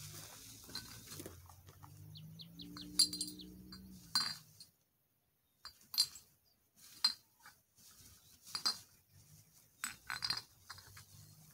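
Glass bottles clinking against each other as they are picked up and dropped into a plastic bag, a sharp clink every second or two. A low steady hum sits under the first four seconds.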